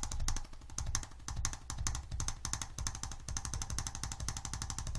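Arthrostim electric adjusting instrument tapping rapidly and evenly against the patient's back near the sacroiliac joint, a fast machine-gun-like run of light percussive thrusts with a low hum underneath.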